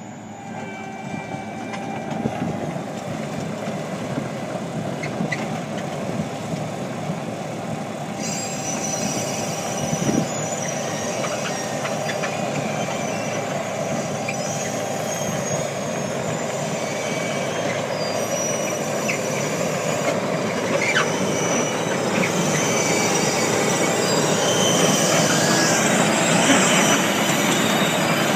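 Tesmec 1075BW trencher working: a steady machinery rumble with shifting high metallic squeals over it, growing louder as it goes.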